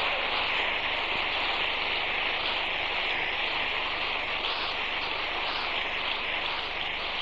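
Congregation applauding in a long, even round of clapping that eases off slightly near the end.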